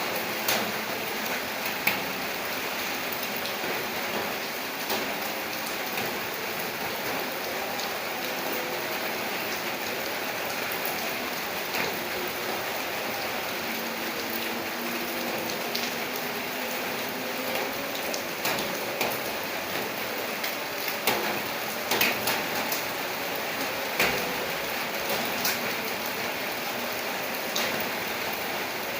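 Steady rain falling, a constant hiss with scattered sharper drop hits on a surface.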